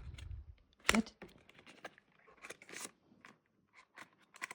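Small wrapped package being handled and unwrapped by hand: scattered crinkles and light clicks, with one sharp click about a second in.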